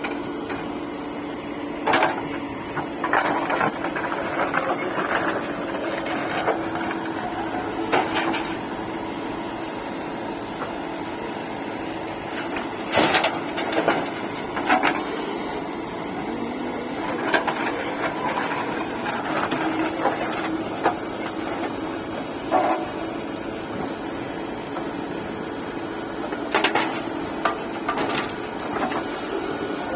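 JCB 3DX backhoe loader's diesel engine running steadily, with sharp knocks and clanks from the working machine every few seconds.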